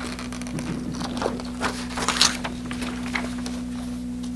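Scattered rustles and light knocks of handling noise, with one sharper knock a little after two seconds, over a steady electrical hum.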